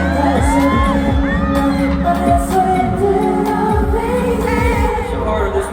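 Pop song performed with a sung vocal over a deep bass beat whose low notes slide downward several times, played over a concert sound system.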